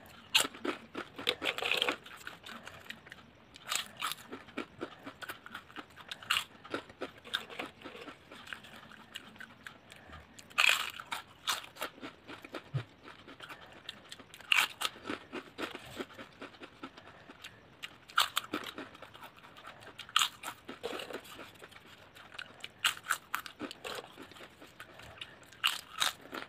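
Close-up crunching of thin, crisp chips being bitten and chewed: a loud crunch every few seconds, with softer chewing crackles in between.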